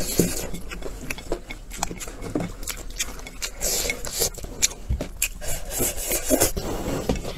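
A person slurping noodles and chewing with their mouth close to the microphone: a run of short, wet slurps and smacks.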